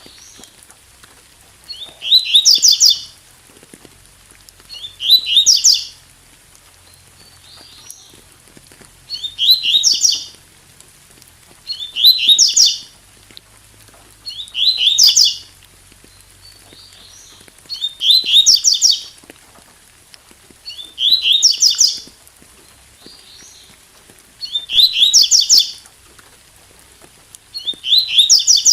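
Double-collared seedeater (coleiro, 'tui tui' song type) singing: about nine short, rapid phrases of high notes, one roughly every three seconds, with softer calls between them. A faint steady hiss of rain runs underneath.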